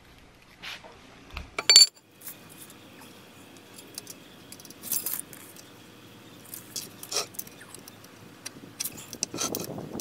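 Small clicks and metallic clinks from handling a steel tape measure while measuring timber. The loudest is one sharp, ringing metallic clink a little under two seconds in.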